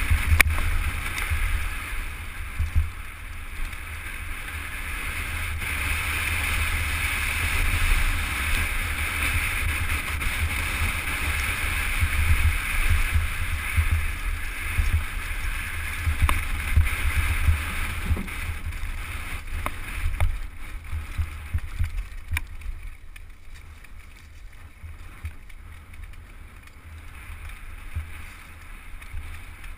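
Wind buffeting the microphone of a camera on a downhill mountain bike at speed, over the noise of tyres rolling on dirt and gravel, with scattered clicks and knocks from the bike. It gets quieter about two-thirds of the way through.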